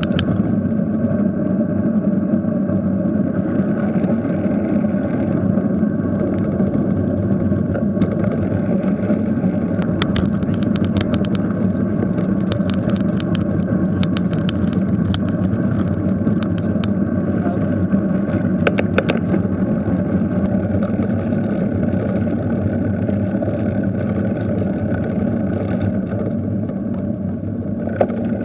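Steady rush of wind and road noise on a bicycle-mounted camera's microphone as the bike rolls along a tarmac road. There is a run of quick light clicks from about ten to fifteen seconds in, and another brief burst a little before twenty seconds.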